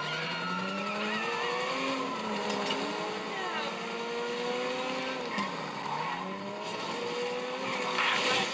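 Video-game sports car engine revving through the gears, its pitch climbing and then dropping at each shift, with some tyre skidding. A rougher, noisier stretch comes near the end as the car runs off the road onto dirt.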